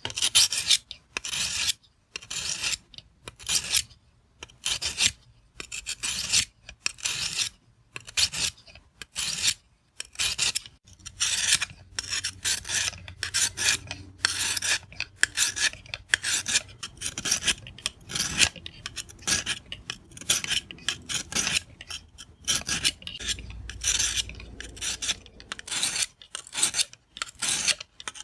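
Pocket-knife blade stroked repeatedly along the coarse stone of a guided rod sharpening kit: rasping strokes about one a second, with a few short pauses. The coarse stone is grinding a dull, nicked edge back into shape.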